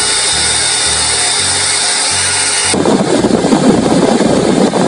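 Bitmain Antminer D3 ASIC miner's cooling fans running flat out, a very loud steady rush of air. About three seconds in the sound turns rougher and lower, close to the exhaust fan as it blows out hot air.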